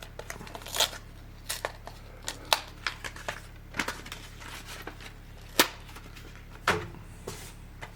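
Hands opening the packaging of a 4K Blu-ray steelbook, pulling it free where it is glued: a string of irregular sharp clicks, crackles and taps, the loudest a little past the middle.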